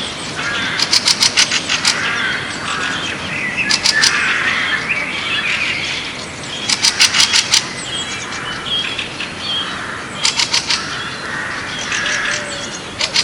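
Several birds chirping and calling at once, with a fast run of sharp, rapid notes breaking in every few seconds, about five times.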